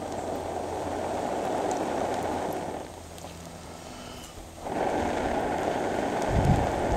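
Two long stretches of rushing air, the first about three seconds, then a pause of about two seconds, then the second, as the fire in a log rocket stove catches and flares up out of its centre hole. Low rumbling bumps come near the end.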